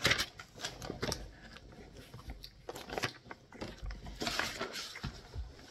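Glossy magazine pages rustling and crinkling as they are handled and turned, with scattered short crackles and a longer rustle about four seconds in.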